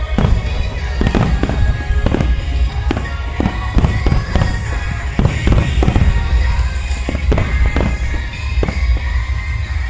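Aerial fireworks shells bursting in quick succession, a sharp bang every half second or so, over loud music played with the display.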